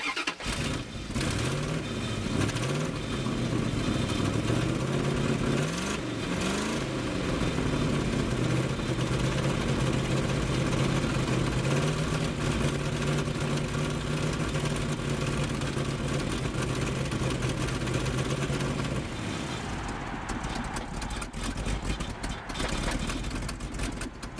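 A truck engine fuelled by wood gas starts and catches at once, an easy start that the owner puts down to gasoline left in the system. It is revved up and down for several seconds, then held at a steady fast run. About 19 seconds in, the engine note drops and turns rough and uneven.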